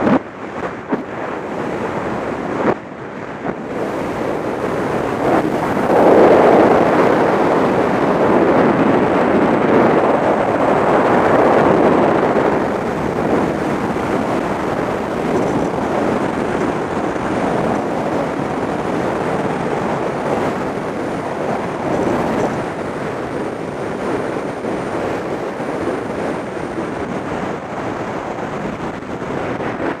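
Wind rushing hard over the camera's microphone during wingsuit freefall, a steady loud roar of air that swells about six seconds in and eases slightly over the last half.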